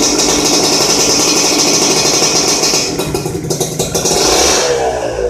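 Modenas Dinamik 120 motorcycle engine running through an RRM aftermarket racing exhaust, revved and held high, easing off about three seconds in and rising again near the end.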